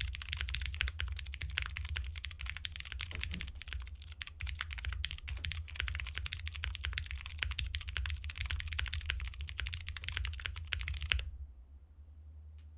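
Fast, continuous typing on a gasket-mounted Vega custom mechanical keyboard with lubed Cherry MX Brown (Hyperglide) tactile switches. The typing stops abruptly about eleven seconds in, leaving a faint low hum.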